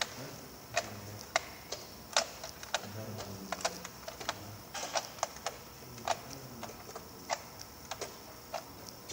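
Irregular sharp clicks and taps, about one or two a second and unevenly spaced, from hands handling small parts in stacked black plastic trays.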